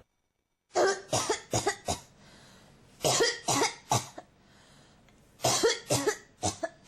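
A person coughing in three fits of several quick coughs each, with a pause of about a second between fits, after a moment of dead silence at the start.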